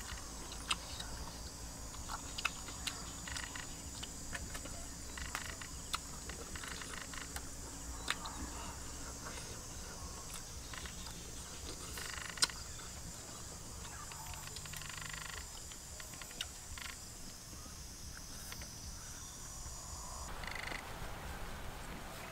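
A steady high-pitched chorus of calling wild animals, which stops about 20 seconds in, with scattered sharp clicks and knocks throughout; the loudest click comes about 12 seconds in.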